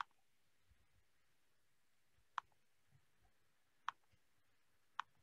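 Computer mouse clicking: four single sharp clicks a second or more apart against near silence.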